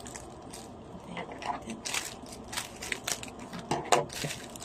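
Plastic parcel packaging crinkling and crackling as it is handled and opened, in irregular rustles and sharp crackles.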